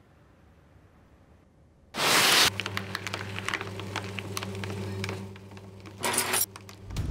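Paper shredder switching on about two seconds in with a loud burst as the sheet is pulled in, then a steady motor hum with crackling as the paper is cut. There is a second short loud burst about six seconds in.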